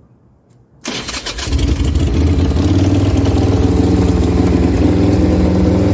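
Harley-Davidson motorcycle engine cranked by the electric starter, catching about a second in and then running at a steady idle.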